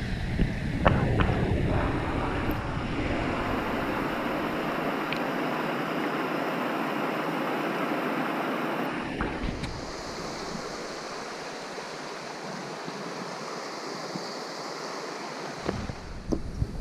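Small creek waterfall splashing over a log jam into a pool, a steady rush of falling water picked up close to the water's surface. The rush gets a little softer after about ten seconds, and a few knocks come near the end.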